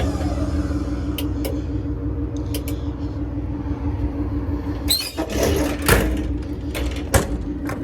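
A Ford F550 with a 6.8-litre V10 gas engine runs steadily under a whine that falls away in the first second as a crane movement ends. Sharp knocks and clanks come a few times, with a louder clattering cluster about five to six seconds in.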